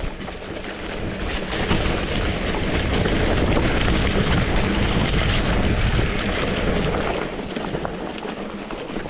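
Wind rushing over the microphone and bicycle tyres rolling fast on a dirt trail during a downhill run, with small rattles and clicks from the bike. The rush builds about a second and a half in and eases off near the end.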